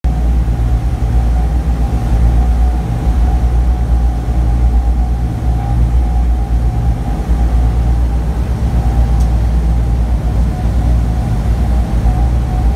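Four Wright R-3350 radial engines of a B-29 Superfortress droning steadily in flight, heard from inside the glazed nose, with a steady higher hum over the deep drone.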